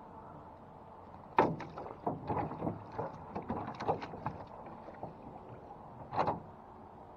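Wooden oar knocking and clattering against an aluminum jon boat as it is picked up and paddled: a sharp knock about a second and a half in, a run of smaller knocks after it, and another knock near the end.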